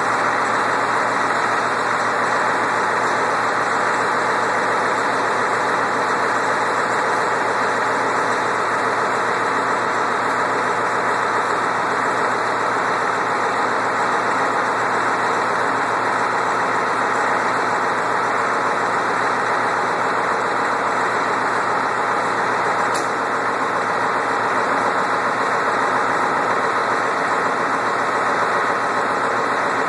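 Freshly rebuilt Ford 7.3 IDI V8 turbo diesel idling steadily.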